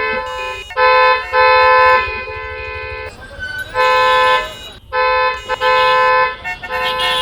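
Vehicle horns honking over and over: about five steady blasts of half a second to a second each, separated by short gaps.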